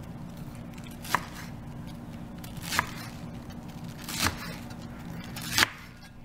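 Chef's knife slicing through a wedge of raw cabbage: four crunching cuts, each ending in a sharp knock of the blade on a wooden cutting board, about one every second and a half.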